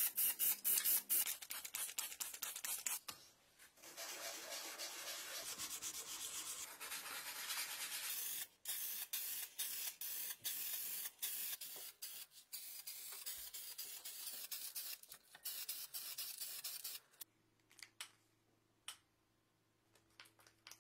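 Spray painting: paint hissing from a sprayer, first in quick short bursts, then in a longer steady spray and more bursts. It stops about three-quarters of the way through, leaving a faint low hum.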